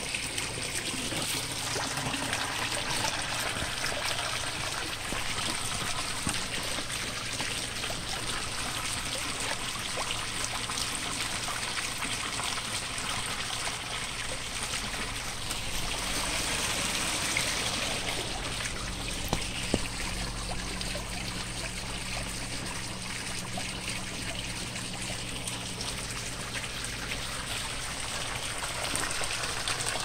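Clear mountain valley water flowing and trickling steadily.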